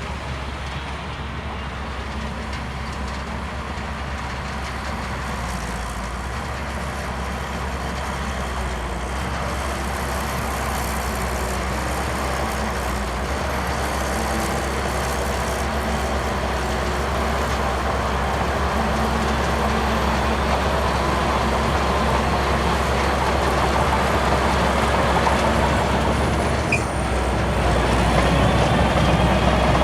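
Heavy diesel engine of a bulldozer running steadily under load, growing gradually louder, with a brief dip near the end.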